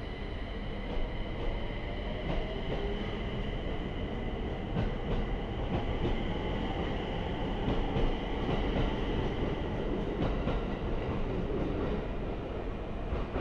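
JR East 701 series electric train pulling away from the platform, its motor whine rising in pitch as it gathers speed, with wheels clacking over rail joints now and then.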